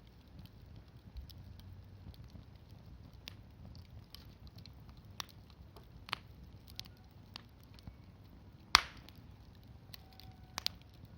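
Wood fire crackling with scattered small pops, and a single sharp crack about nine seconds in, then a lighter one shortly after.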